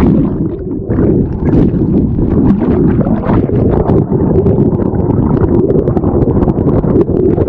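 Loud rushing roar of a waterfall at close range, with wind and spray buffeting the action camera's microphone.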